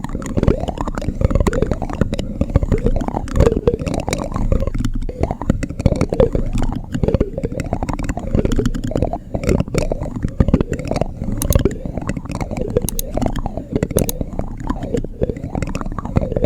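Spoon worked against the microphone for ASMR: a continuous dense run of low, muffled scraping and rubbing with many small clicks.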